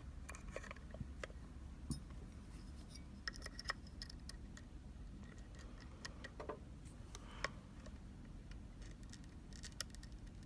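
Small irregular metallic clicks, ticks and light scrapes of a key or picks working in a Sargent Keso mortise lock cylinder, with a few sharper clicks scattered through.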